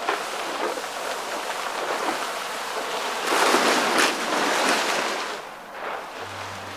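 A plastic tarp rustling as it is dragged off a camper, a rushing hiss that swells loudest about three and a half to four and a half seconds in and then dies away.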